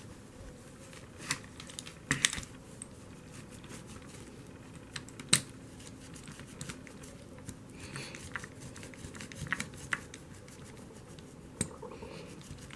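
Quiet handling sounds as a cloth wipes the freshly polished drive rod of a Lionel model locomotive: scattered small clicks and taps with short soft rubbing, the loudest click about five seconds in.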